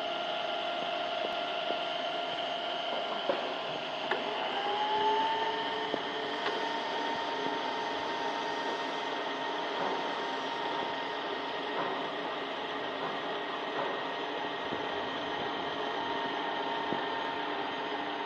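ZAY7045FG geared-head milling and drilling machine running with its spindle power feed in use: a steady motor hum and gear whine. About four seconds in, the whine rises in pitch and then holds, with a few faint clicks.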